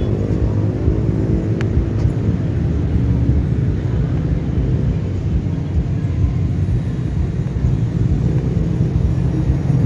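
Wind buffeting the microphone as a heavy, steady low rumble, with the RC foam jet's electric motor humming faintly in the first second or so before fading.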